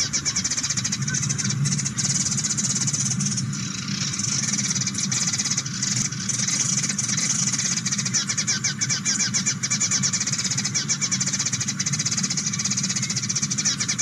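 A flock of small birds chattering: many quick overlapping high chirps over a steady low hum.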